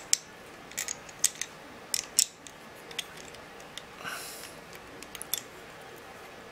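Clear plastic microscope holder clicking and knocking against the USB microscope's body as it is fitted on by hand: a string of sharp, irregular clicks, thickest in the first couple of seconds, with a few more about five seconds in.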